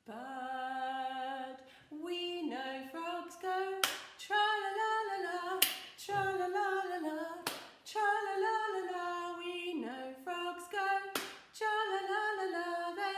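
A single voice singing a children's action song unaccompanied, in short melodic phrases, with a few sharp clicks between the phrases.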